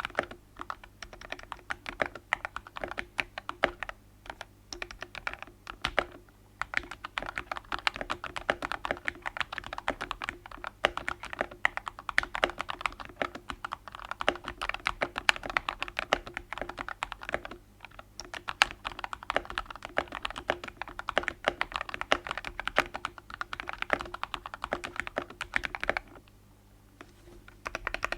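Typing on a Rebel 60 custom mechanical keyboard with TKC Tangerine V2 linear switches lubed with 205g0, PBT keycaps, a polycarbonate plate and a tape mod: fast, continuous keystrokes, with a short pause near the end.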